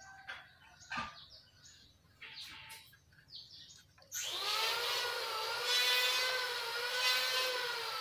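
A small electric motor starts about four seconds in and runs steadily with a whine, its pitch sagging slightly near the end. Before it come only a few faint taps.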